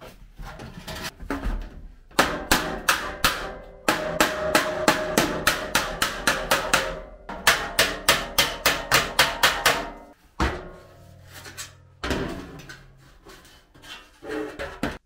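Hammer blows on sheet metal in steady runs of about three strikes a second, each blow ringing briefly, with short pauses between runs.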